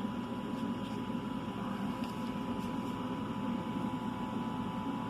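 Steady background hum with a thin constant tone, and a few faint light clicks.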